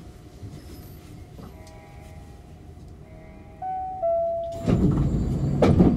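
Inside an Osaka Monorail 2000 series car, a chime of a few stepped tones sounds, then the doors slide shut with a loud rumble and clatter about four and a half seconds in.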